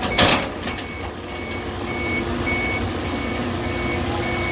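A vehicle's reversing alarm beeping steadily, a little under two beeps a second, over a running engine, with a single loud bang just after the start.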